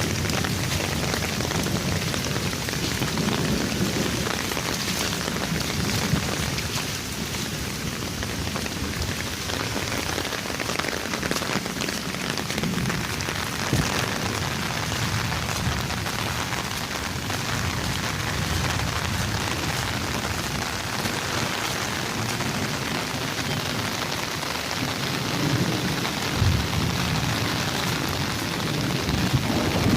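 Heavy rain falling steadily, a dense even hiss, with an uneven low rumble underneath.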